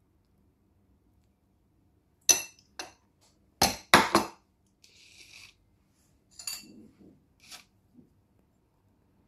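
Metal cutlery clinking against a plate and tub: a few sharp clinks, the loudest pair about four seconds in, a short scraping rustle, then lighter clinks and taps as a spoon is handled in an opened cottage cheese tub.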